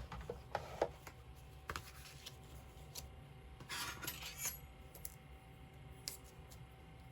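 A few light clicks and taps with a brief rustle about four seconds in: a metal cutting die and paper being handled and positioned on a craft table.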